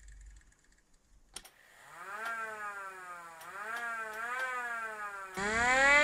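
Miniature 3D-printed Federal Signal STL-10 rotor siren doing quick growls. A click comes about a second and a half in, then the siren's pitch rises and falls briefly three times. Near the end a louder, sharper rise comes in.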